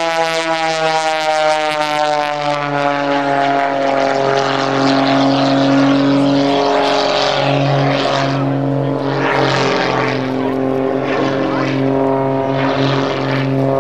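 Aerobatic propeller plane's piston engine running hard overhead during a smoke-trailing display. Its note sinks slowly in pitch over the first few seconds and then holds steady, with surges of rushing propeller noise in the second half.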